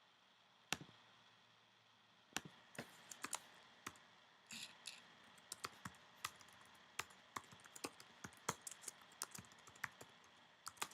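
Faint typing on a computer keyboard: short, sharp, irregular clicks, a few at first, then coming thick and fast from about two seconds in.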